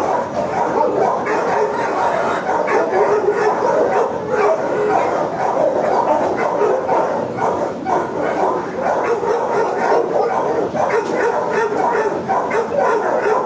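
Many shelter dogs barking and yipping at once, their calls overlapping into a constant din with no let-up.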